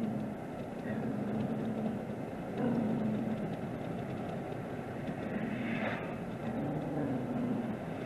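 A dog growling in several low, drawn-out bouts at its own reflection in the side mirror, over the steady road noise inside a moving truck's cab.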